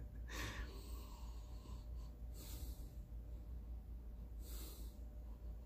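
A person drawing in air at a teacup three times, about two seconds apart: short, faint, airy inhales as the tea is smelled and sipped.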